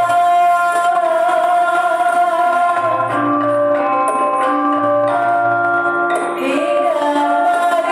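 Malay gamelan music for joget dancing: bronze mallet instruments play a steady melody over sustained ringing notes and low gong-like pulses, with a melodic line that slides in pitch in places.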